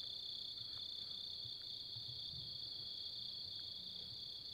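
Night-time chorus of crickets: a steady, high-pitched trill that goes on without a break.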